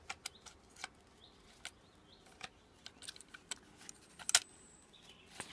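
Small clicks and light rattles of survival-kit items being handled and packed back into a knife sheath's pouch by hand, irregular and sparse, with one sharper click a little past four seconds in.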